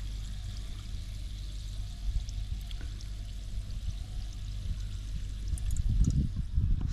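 Club soda fizzing in a plastic cup over a crushed salt, chilli and ginger mix: a steady hiss of bursting bubbles with scattered tiny pops, over a continuous low rumble. A few louder low knocks come near the end.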